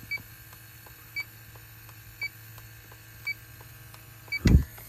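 Handheld electronic refrigerant leak detector beeping slowly and evenly, about once a second, as its probe is worked around an air handler's coil: the idle rate that means no refrigerant is being sensed. A single loud thump comes near the end.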